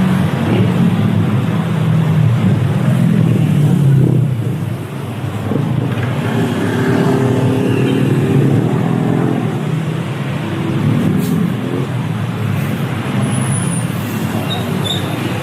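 City street traffic: motor vehicles running close by, with a loud engine hum for the first few seconds over continuous road noise.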